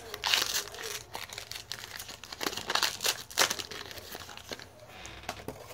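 Foil wrapper of a trading-card pack crinkling and tearing as it is pulled open by hand, in short rustles that die down about four and a half seconds in.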